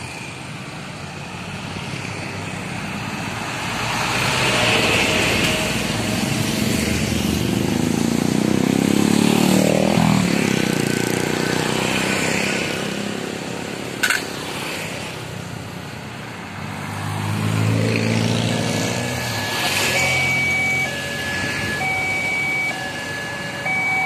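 Road traffic passing a railway level crossing: motorcycles and cars going by, a large vehicle the loudest about nine or ten seconds in, and a brief sharp sound at about fourteen seconds. About twenty seconds in, the crossing's electronic warning bell starts, two tones alternating in a steady repeat, the signal that a train is approaching.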